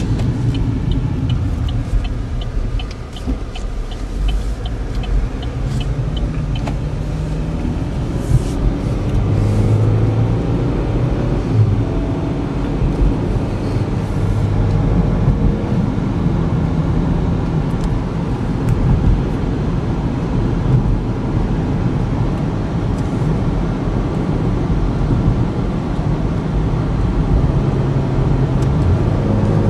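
Cabin noise of a 2014 Chevy Equinox on the move: its 2.4-litre four-cylinder engine running with steady road and tyre rumble at road speed. A quick run of small ticks, about three a second, sounds for the first six or so seconds and then stops.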